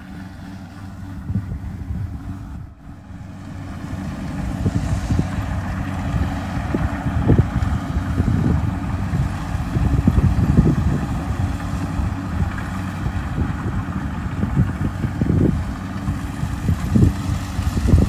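Kubota DC-70 Plus combine harvester's diesel engine running steadily while harvesting rice, with wind gusting on the microphone.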